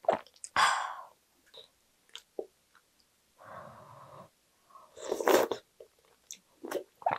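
Close-miked eating sounds: short wet mouth noises of chewing, and just after five seconds a loud slurp of doenjang stew broth from a wooden spoon.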